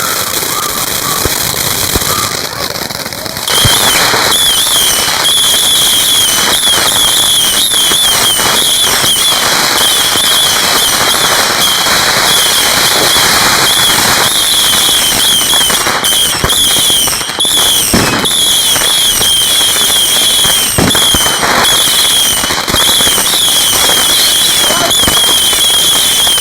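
Ground fountain firework spraying: a loud, steady hiss with scattered crackles that starts suddenly about three and a half seconds in and keeps going.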